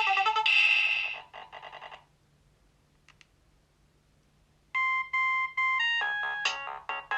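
Nokia 3200 mobile phone ringtones played through the phone's speaker. One melody ends with a few trailing notes about a second in, followed by about three seconds of near silence. A new ringtone then starts with a repeated beeping tone and breaks into a quick, busy melody.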